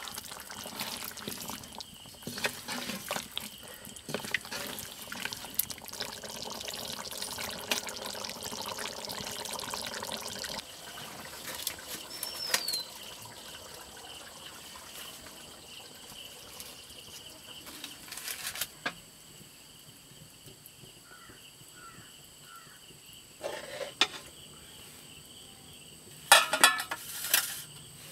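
Mutton gravy simmering and sizzling in a pan over a wood fire while it is stirred with a wooden spatula. After about ten seconds the bubbling gives way to a quieter stretch broken by a few clatters of metal pans and a ladle, the loudest near the end.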